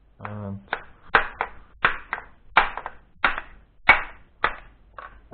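Hammer striking the laminated steel core of a microwave oven transformer: about a dozen sharp metal blows, roughly three a second, knocking the core sheets loose to free the copper secondary coil.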